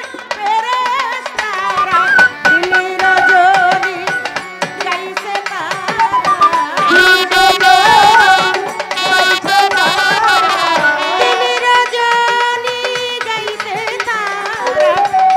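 Live Bengali baul song: a woman's singing and a wavering melodic accompaniment over a steady hand-drum rhythm, with a brighter, busier instrumental passage in the middle.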